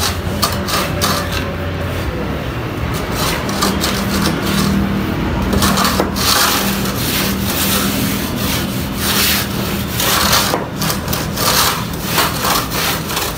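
Hand plaster float rubbed back and forth over wet cement plaster on a beam face, a run of irregular scraping strokes, over a steady low hum.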